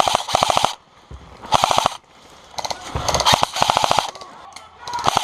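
Airsoft electric guns (AEGs) firing short full-auto bursts, about six in a row, each a rapid string of even clicks.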